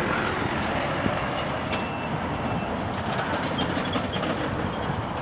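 Articulated tanker lorry driving slowly out of a site entrance and passing close by, its diesel engine running steadily.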